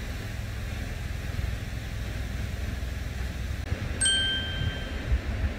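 A single bright chime rings out about four seconds in and dies away over about a second, over a steady low rumble.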